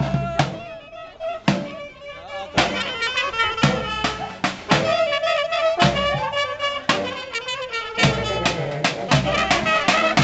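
Balkan brass band playing live: brass, saxophones, accordion and sousaphone over a steady percussive beat. The music thins out for a couple of seconds near the start, then the full band comes back in.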